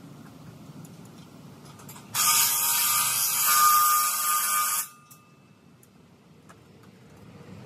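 A handheld power tool, most like an impact wrench, runs for just under three seconds as it drives a bolt at the top of a steel gantry. It starts and stops abruptly.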